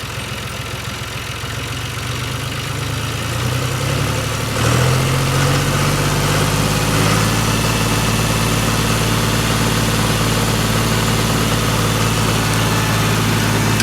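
John Deere 5105 tractor's diesel engine idling, then revving up about four and a half seconds in and holding steady at a higher speed.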